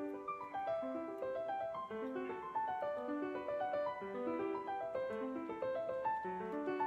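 Background piano music: a quick run of short, evenly paced notes.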